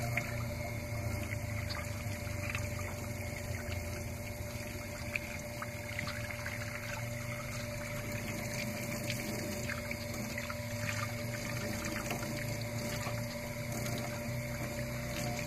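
Steady running water rinsing a freshly gutted trout, with a low steady hum beneath it and a few small ticks as the fish is scrubbed.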